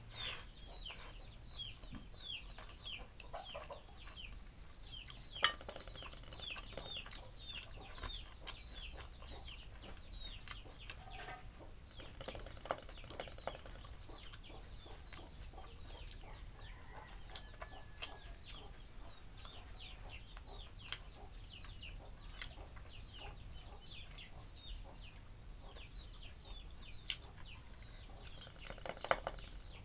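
Chicks peeping on and on: many short, falling cheeps, several a second. A few soft knocks and clicks sound among them, the sharpest about five seconds in.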